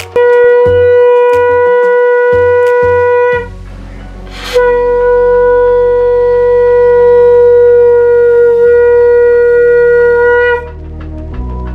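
Conch shell (shankha) blown in two long, steady blasts at one pitch, the second nearly twice as long as the first, with a short breath between them.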